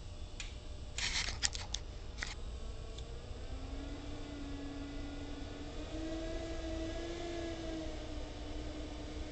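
Handling noise from a painting being held and moved close to the microphone: a cluster of rustles and taps about a second in. Low room rumble under it, and a steady hum comes in around the middle.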